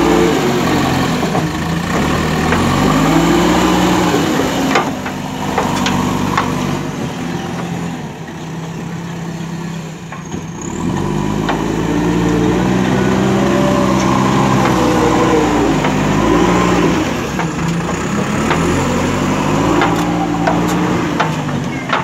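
JCB 3DX backhoe loader's four-cylinder diesel engine running under load, revving up and down several times as the backhoe arm and bucket work, with a few sharp knocks.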